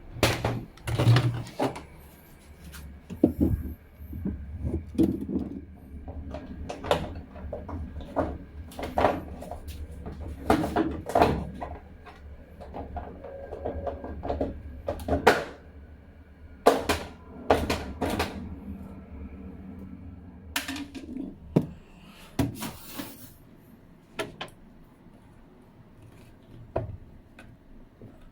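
Irregular knocks, clicks and clattering of hard parts being handled and fitted, with some rustling handling noise between them; the sounds thin out in the last few seconds.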